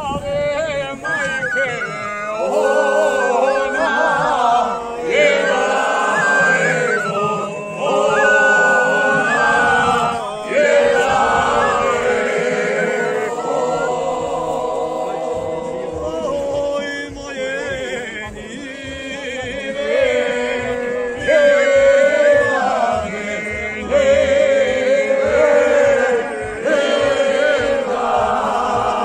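A group of voices singing a traditional folk song together without instruments, in long, held, wavering phrases broken by short pauses for breath.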